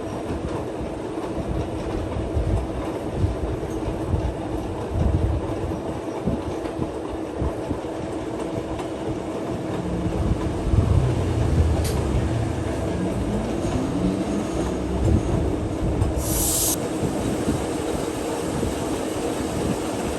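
Metal lathe running: a steady hum over a low rumble, with a short high hiss about sixteen seconds in.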